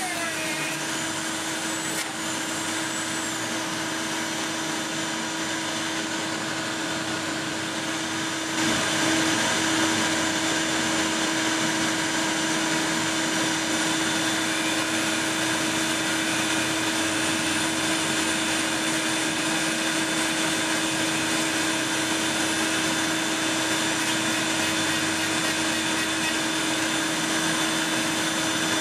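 Handheld rotary tool running steadily while sanding a piece of G-10 fibreglass, its motor making a steady high hum; it gets a little louder about eight seconds in.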